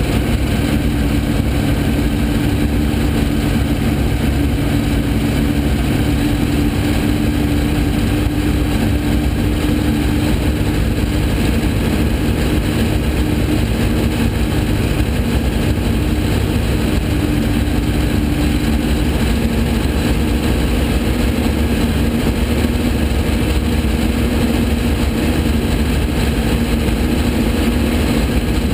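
Onboard sound of a Porsche 917K's air-cooled flat-12 racing engine running at a steady pitch. The note shifts slightly about two-thirds of the way through.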